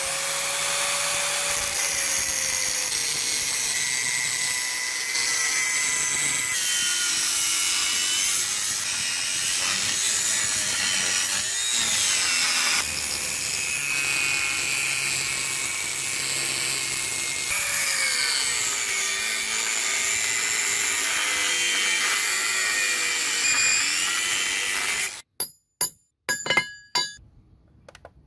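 Angle grinder with an abrasive cut-off disc cutting through rusted steel railway track, a loud steady grinding with a whine whose pitch wanders up and down as the disc is pushed through the cut. It stops abruptly near the end, followed by a few short sharp clicks.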